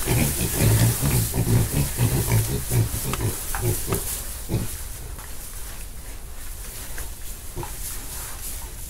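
Piglets grunting in quick, short grunts as they root through straw bedding. The grunts thin out and grow quieter after about four seconds.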